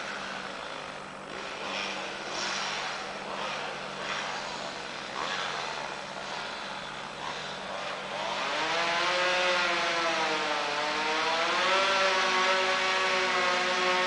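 Chainsaw running and cutting, uneven in level for the first eight seconds or so, then revving up to a steady high pitch that wavers slightly as it works through the tree.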